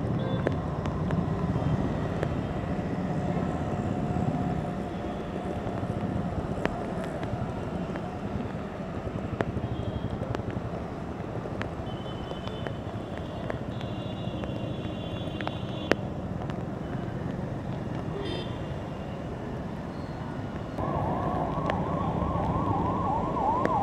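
Rain and traffic on wet city roads, a steady wash of noise. Near the end an emergency-vehicle siren starts up, a fast wavering yelp.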